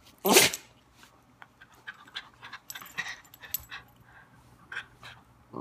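Small dog panting and snuffling during rough play with its collar tags jingling, with one short loud huff about a quarter second in.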